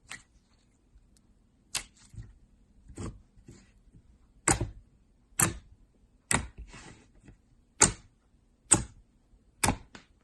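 Crunchy slime being squeezed and pressed by hand, giving a series of sharp crunchy pops and crackles, roughly one a second.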